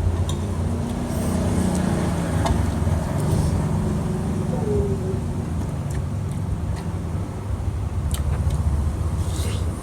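A steady low mechanical rumble, like a running engine, with a few faint clicks over it.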